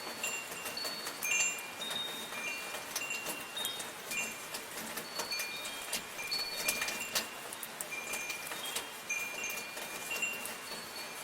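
Metal wind chimes ringing at random, many overlapping high, clear tones, over the hiss and patter of light rain.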